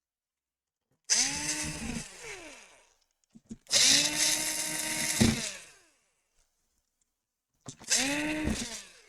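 A small handheld power tool with an electric motor runs in three short bursts, winding up and then down each time, with a grinding hiss while it runs.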